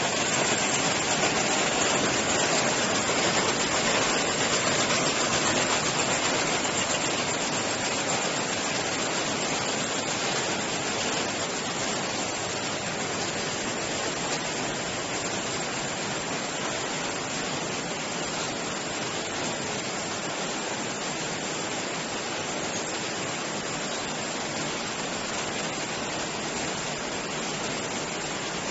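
Z-type bucket elevator running: a steady, even hiss-like noise from its drive and bucket chain, easing slightly after about ten seconds.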